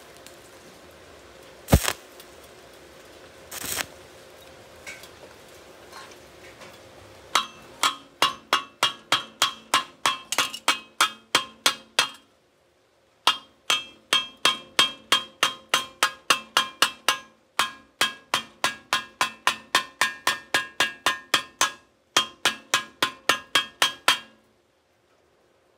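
Hammer striking the freshly welded galvanized steel pipe: a few single knocks, then long runs of quick, even taps, about three a second, each leaving the steel ringing. This is the usual way of knocking slag off a stick weld.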